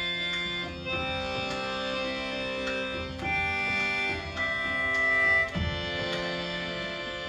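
Instrumental break in a folk song: held chords on a sustained instrument, changing about once a second, with light percussive taps.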